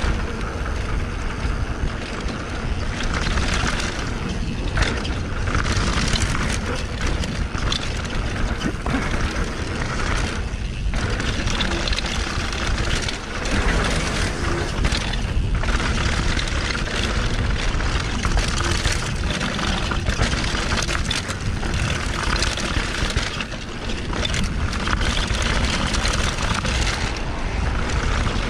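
A mountain bike descending a dry dirt trail at speed: steady rushing wind on the microphone mixed with tyre and trail noise, and frequent knocks and rattles from the bike over bumps.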